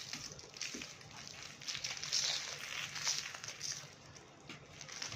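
Dry red clay crumbling and breaking apart: a dense run of crisp crackles and crunches, loudest about two and three seconds in.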